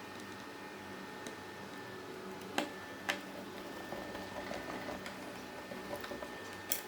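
Light clicks and taps of small parts being fitted into a computer power supply: three sharp clicks, about two and a half seconds in, half a second later, and again near the end, over a faint steady hum.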